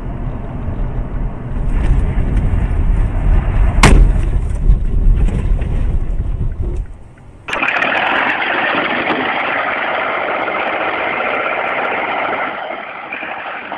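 A heavy engine running with a deep rumble, and a single sharp bang about four seconds in. After a sudden change a little past halfway, a steady hissing noise takes over.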